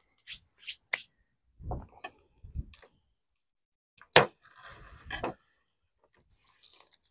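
Handling sounds of a sauce bottle being opened: scattered small clicks and rustles and a couple of dull knocks, with one sharp click about four seconds in.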